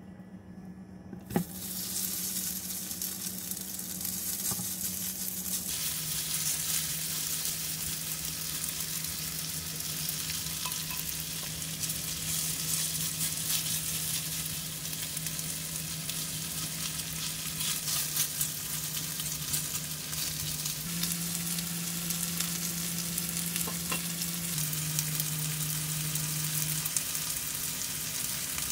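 Shredded potato going into hot oil in a nonstick frying pan about a second in, then steady sizzling as it fries and is spread thin with chopsticks. A low steady hum runs underneath and shifts pitch a few times.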